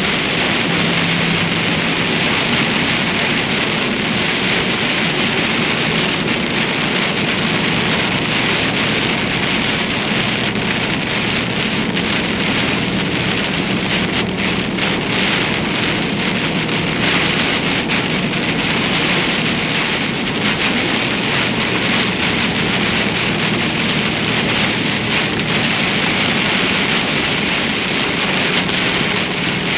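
Heavy rain pelting a moving truck in a storm, a dense, steady hiss, with the low drone of the truck running under it.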